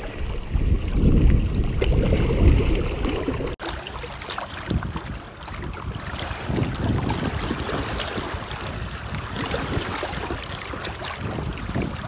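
Low rumble for the first few seconds, then, after a sudden break, water sloshing and splashing with many small drips and splashes around a striped bass held by hand in the shallows.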